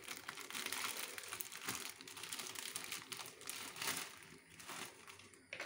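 Plastic wrapper of an Indomie instant-noodle packet crinkling as it is handled and opened, thinning out after about four seconds.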